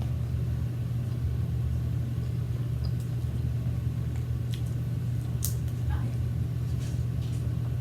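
Someone eating, with a few soft clicks and smacks of chewing, the sharpest about five and a half seconds in, over a steady low hum.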